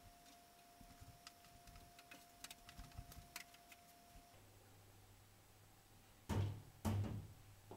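Faint clicks and light knocks as pots are handled inside a glass-door cabinet, then two louder thuds near the end, half a second apart, as the IKEA Milsbo cabinet's glass doors are pushed shut.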